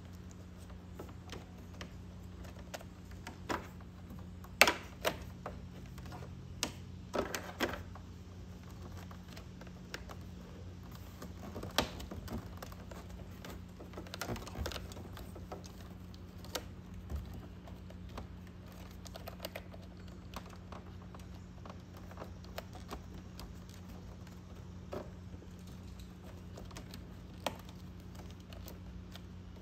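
Hands working wiring and plastic clips inside a scooter's battery compartment: scattered small clicks, taps and rustles of cable and plastic, the sharpest about four and a half seconds in. A steady low hum runs underneath.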